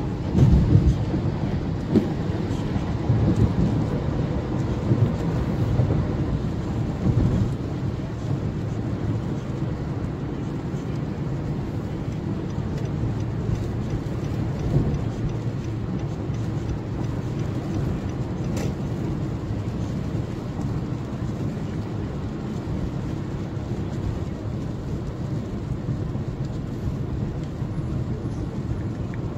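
Car interior noise while driving on a wet highway: a steady low rumble of the car and its tyres on the rain-soaked road. A few louder bumps come in the first seven seconds or so.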